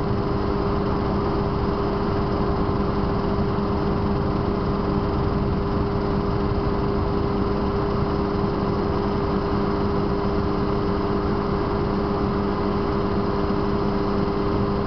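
Small helicopter in steady flight, heard from on board: a continuous, unchanging drone of engine and rotors with a constant hum.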